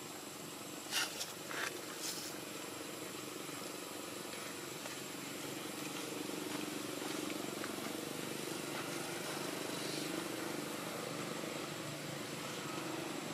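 Outdoor ambience dominated by the steady low hum of a distant motor vehicle, swelling a little in the middle, with three short, sharp high-pitched sounds in the first couple of seconds.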